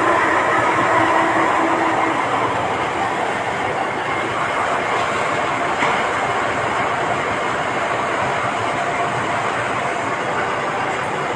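Concrete batching plant machinery running: a steady, loud, dense rumble and rattle, with a humming tone that fades out about two seconds in.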